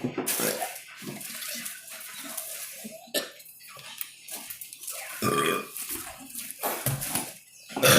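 A person burping, with a long, deep burp about five seconds in and a shorter one near seven seconds.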